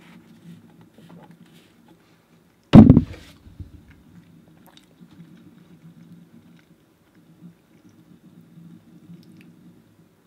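Chewing a mouthful of Cheerios close to the microphone, with small clicks, and one loud knock about three seconds in.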